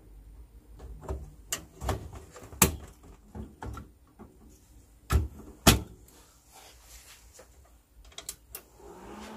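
Hands working inside an open desktop computer case: a series of sharp plastic and metal clicks and knocks, the loudest three spread through the middle. Near the end a steady whir rises as the computer powers on and its fans spin up.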